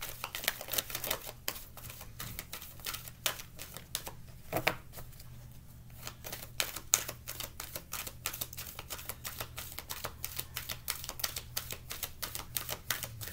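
A deck of reading cards being shuffled by hand: a fast, irregular run of crisp card clicks and flaps. It thins out briefly about five seconds in, then picks up again.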